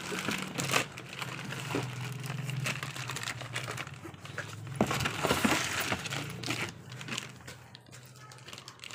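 Plastic wrapping crinkling and rustling as a rice cooker is handled and lifted out of its cardboard box, with irregular crackles that are loudest about five seconds in.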